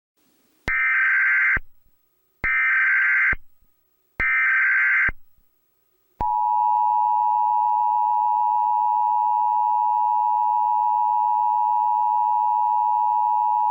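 Emergency Alert System alert opening: three short screeching data bursts of the SAME header, about a second apart, followed by the long steady two-tone attention signal.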